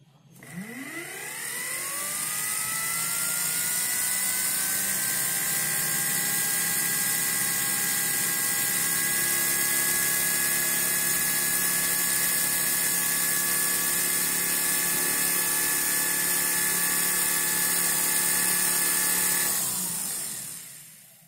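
A 220 V universal (mixer/drill) motor with a drill chuck, running off a 12 V battery. It spins up with a rising whine over about two seconds and then runs at a steady high-pitched whine with a hiss. It winds down and fades out near the end. It runs fast on the weak field left by residual magnetism, so it has high speed but little torque.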